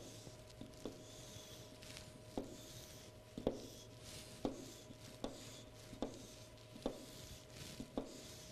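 Chalk on a chalkboard as block letters are drawn: faint scratchy strokes, each starting with a sharp tap, roughly once a second.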